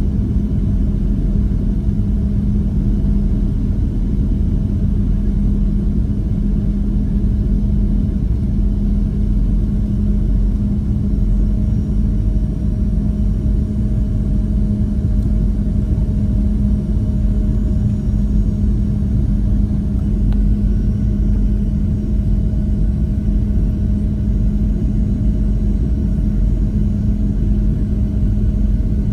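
Steady cabin noise inside a Boeing 737-700: the engines and the air rushing past the fuselage make a constant low rumble with a steady hum running under it, unchanging throughout.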